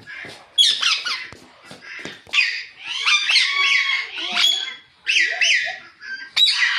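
Pet Alexandrine and ringneck parakeets chirping: a run of loud, pitch-sweeping calls in several bursts with short pauses between them.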